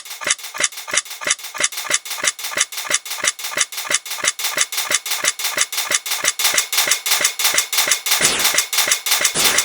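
Railroad crossing warning bell ringing, a rapid 'kan-kan' clang of about four metallic strikes a second. About eight seconds in, a denser rushing noise joins the strikes.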